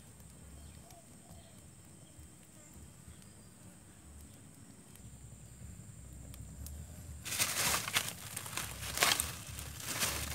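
A small kindling fire burning quietly with faint ticks. Then, from about seven seconds in, a plastic bag of charcoal rustles and crinkles loudly in irregular bursts as it is handled.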